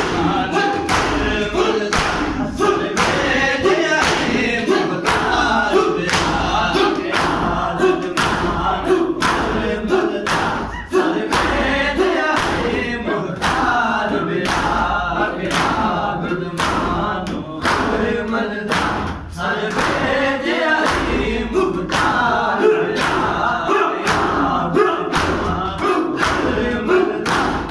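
Crowd of men chanting a noha together while beating their chests in unison for matam, the hand strikes landing as sharp, regular thumps a little under two a second.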